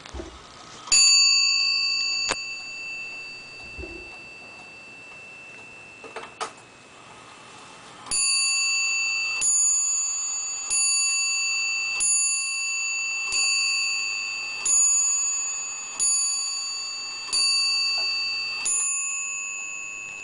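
Warmink (Wuba) Zaanse wall clock with an 8-day Atlas movement, striking on its bell. A single strike rings about a second in and a click comes a few seconds later. Then the hour is struck: nine strikes about 1.3 seconds apart, each left ringing, telling nine o'clock.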